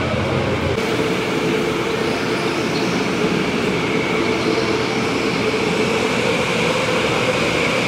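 Electric go-karts running on an indoor track: a steady, loud mechanical whir with a high whine over it.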